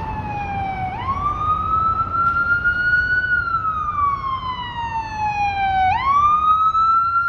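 Ambulance siren in a slow wail: the pitch glides down, jumps quickly back up about a second in, climbs and falls slowly again, and jumps up once more near the end. Steady city traffic noise runs underneath.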